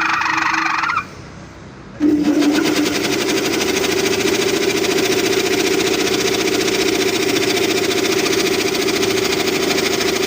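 20 hp belt-driven air compressor running loudly under test, with a high squeal at first; the sound cuts out about a second in and the machine comes back on a second later, its hum rising slightly as it comes up to speed, then running steadily.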